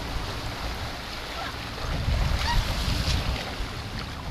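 Sportfishing boat under way: engine running with wind and rushing water around the stern, the low rumble swelling briefly about two seconds in.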